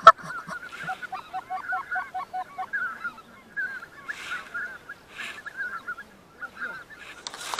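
Geese honking: a chatter of many overlapping honks. About a second in comes an evenly spaced run of honks, about five a second, and the honking thins out near the end.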